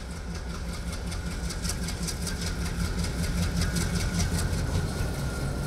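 Diesel locomotive hauling a passenger train as it approaches, its engine running with a steady low drone. A faint thin whine sinks slightly in pitch near the end, and quick light ticking comes through the middle.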